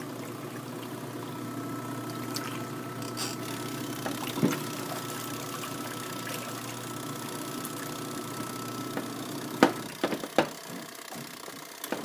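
Spin-dryer tub of a Sharp Supertwin twin-tub washing machine spinning with a steady motor hum and no clattering, the sign that the clothes inside are spread evenly and balanced. Near the end come two sharp knocks, after which the hum fades.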